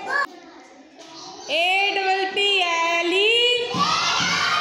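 A class of young children singing a nursery rhyme together, with long held notes. There is a short lull about a second in before the singing comes back loud.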